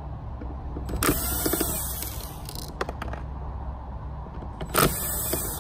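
Cordless drill/driver backing out the screws that hold an ultrasonic humidifier's transducer and circuit board, in two short runs: one of about a second and a half starting about a second in, and a shorter one near the end.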